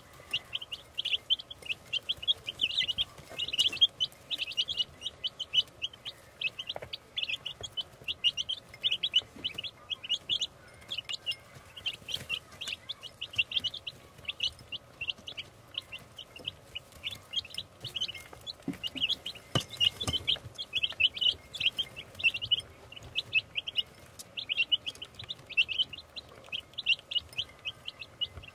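Baby chicks peeping continuously: many short, high chirps in quick, overlapping runs.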